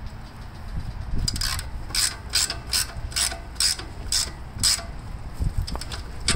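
Socket ratchet wrench clicking in short bursts, about two a second, as the handle is swung back and forth to tighten a fuel fitting into the bottom of a tractor's steel fuel tank.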